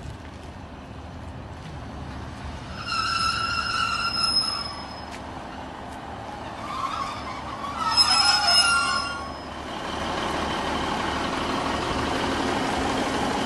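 Class 150 Sprinter diesel multiple unit coming to a stop at the platform, its brakes squealing high-pitched twice. A steady rushing noise follows near the end.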